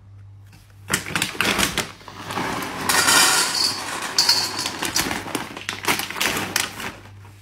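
Dry dog kibble poured from a bag into a stainless steel bowl: a dense rattle of pellets on metal that starts about a second in and stops just before the end.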